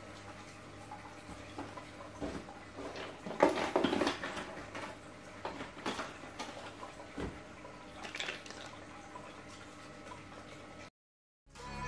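Scattered clicks, knocks and clatter of small objects being handled, thickest about three to four seconds in, over a faint steady hum; the sound cuts off abruptly near the end.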